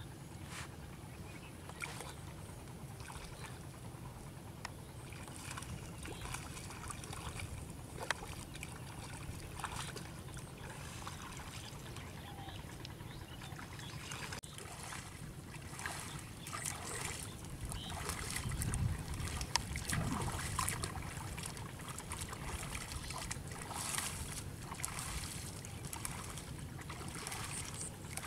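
Shallow water in a flooded rice paddy splashing and sloshing in irregular bursts as a person wades through it and gropes in it with his hands. A steady low rumble lies underneath, louder for a couple of seconds about two-thirds of the way in.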